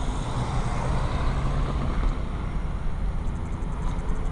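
Union Pacific manifest freight train approaching: a steady low locomotive rumble under a wash of train noise, slowly growing louder.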